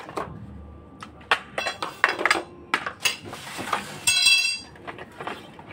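Parts of a baby rocker being handled during assembly: metal tubes and hard plastic pieces clinking and knocking against each other and the floor in a string of sharp clicks. A short ringing note comes about four seconds in.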